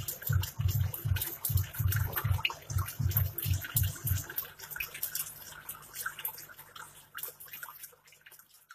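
Aquarium aeration: air bubbling up through the water, with many small crackles and splashes at the surface. A low throbbing pulse, about two to three beats a second, runs under it and stops about halfway, and the bubbling fades near the end.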